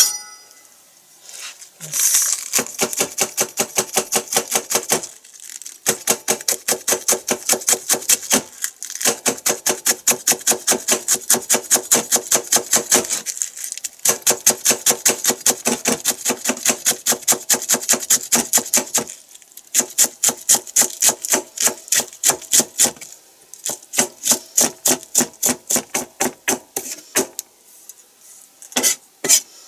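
Kitchen knife shredding cabbage on a plastic cutting board: runs of fast, even chops with short pauses between them.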